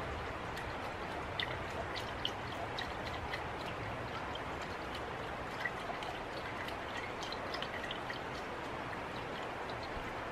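A little water swirled around inside a small metal camp pot, sloshing against its sides with scattered light ticks, as the pot is rinsed of food residue.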